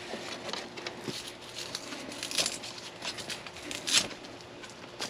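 Nylon screen-shelter fabric rustling and crinkling as it is handled, with the rip and press of Velcro straps being fastened. There are short sharp noises about two and a half seconds in and, loudest, about four seconds in.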